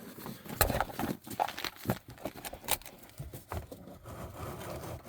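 A series of irregular light knocks and clicks, about a dozen, the loudest under a second in and near three seconds in.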